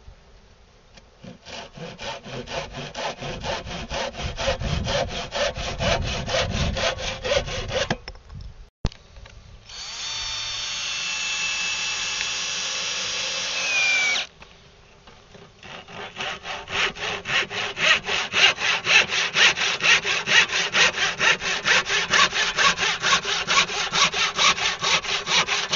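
Handsaw cutting a wooden board in quick, even back-and-forth strokes. A cordless drill breaks in with a steady whine for about four seconds, dropping in pitch as it stops. Then the sawing resumes, louder.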